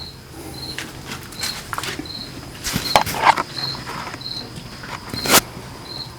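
A cricket chirping in a steady rhythm, about three chirps every two seconds, under a few loud knocks and scrapes of debris, the sharpest about five seconds in.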